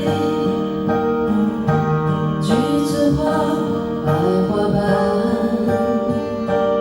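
Karaoke song with a singing voice over the backing track, played loudly through a karaoke room's sound system.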